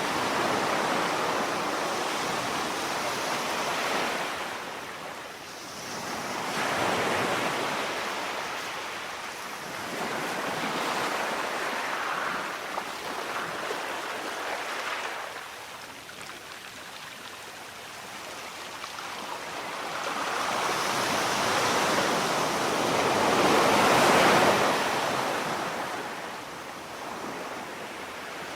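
Sea waves breaking and washing ashore, the rushing surf swelling and ebbing in slow surges every few seconds, the loudest surge about three-quarters of the way through.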